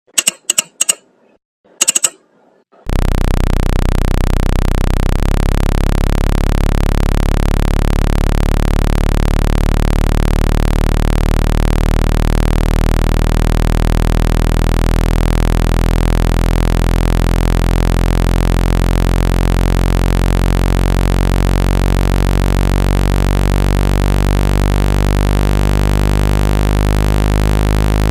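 A steady, loud, low-pitched electronic buzzing tone with many overtones: the speaker-cleaner tone that shakes water and dust out of a phone speaker. It starts about three seconds in, after a few short blips.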